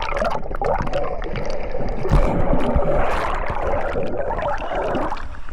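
Water splashing and gurgling, a steady churning rush with a few low thumps about two seconds in.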